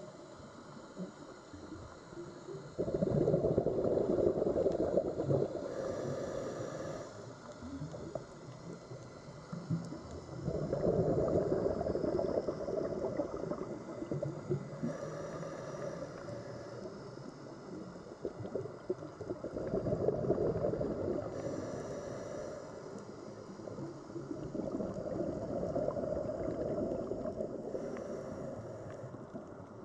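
Scuba diver breathing through a regulator underwater: four breaths, each a loud bubbling rush of exhaled air followed by a short hissing inhale, about eight seconds apart.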